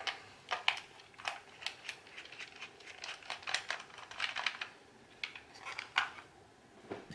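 Small screwdriver turning a Phillips-head screw in the back of a plastic drone transmitter: a run of light, irregular clicks and scrapes of metal on screw and plastic.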